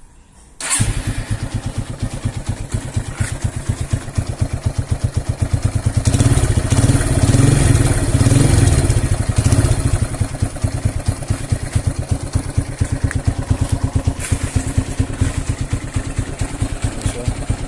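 Honda Megapro single-cylinder four-stroke engine breathing through a fitted Honda Tiger 2000 exhaust muffler. It starts up less than a second in and idles with an even beat. The revs rise for a few seconds around the middle, then it settles back to idle.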